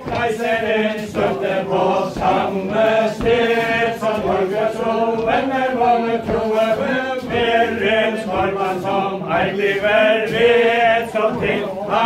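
Mixed group of men and women singing a Faroese ballad in unison for a chain dance, a steady chanted melody with verse and refrain.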